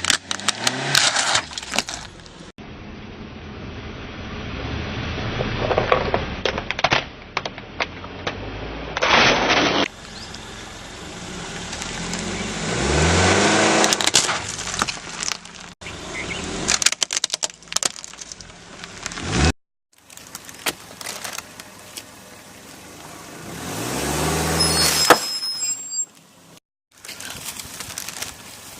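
A series of short clips of a car driving over and crushing brittle objects. In each, the engine revs up as the car moves off, then sharp cracking and crunching comes from under the tyres.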